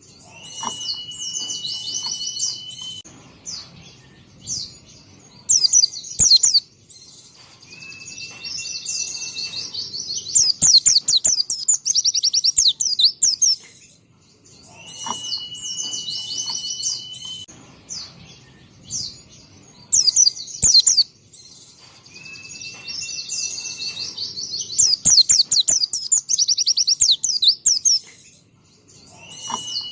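White-eye (pleci) in full song: rapid, high twittering trills, now and then over a long, steady whistled note held for a couple of seconds. The same phrase sequence comes round again about every 14 seconds.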